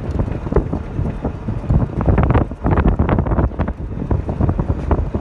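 Wind buffeting the microphone of a moving golf cart: a loud, gusty rumble that rises and falls unevenly.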